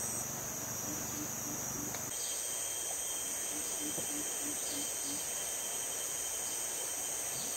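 Steady high-pitched chorus of insects, unbroken throughout. A low hum under it stops abruptly about two seconds in.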